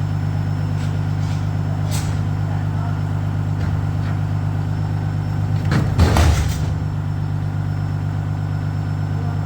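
A vehicle engine running steadily at a low drone, with a few light clicks and a brief clatter about six seconds in.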